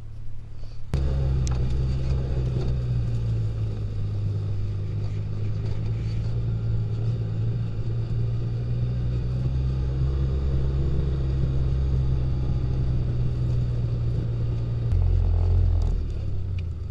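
Engine of a side-by-side utility vehicle (UTV) running as it drives, a steady low hum heard from the seat, starting abruptly about a second in. Near the end the engine note drops lower for about a second as the vehicle slows.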